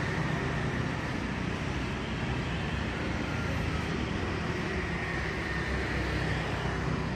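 Steady background rumble and hiss with no distinct events and a faint high tone running through it.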